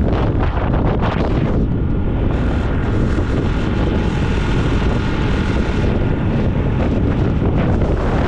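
Wind buffeting the microphone of a camera held up by the passenger on a moving motorcycle, with the motorcycle's running and road noise beneath it. A faint steady whine joins for a few seconds in the middle.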